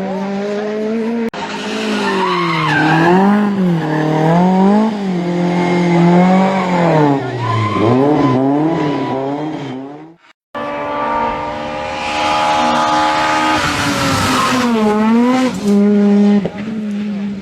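Rally car engine at full attack, its revs rising and falling again and again through gear changes and corners, with tyre skidding. About ten seconds in the sound cuts out for a moment, and another stretch of hard-driven engine follows with a burst of tyre and gravel noise near the end.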